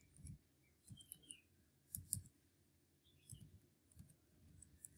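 Faint, scattered keystrokes on a computer keyboard, a few short clicks at a time with pauses between.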